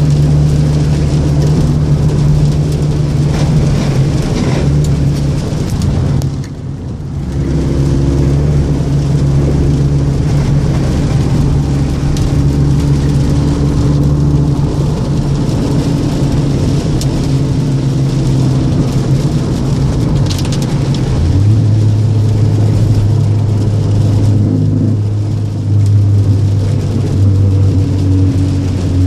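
Seventh-generation Toyota Celica's engine and aftermarket exhaust running while the car is driven, with a brief dip in level around seven seconds in and a settle to a lower, steady note about two-thirds of the way through.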